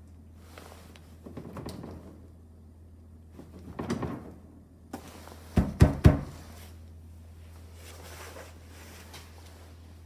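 Small fridge door being handled: soft rustling and bumping, then three sharp knocks close together about six seconds in, over a steady low hum.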